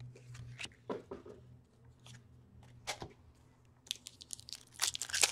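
Wrapper of an SPX hockey card pack crinkling and tearing as it is opened. Scattered crackles at first, then a dense, louder burst of crinkling from about four seconds in.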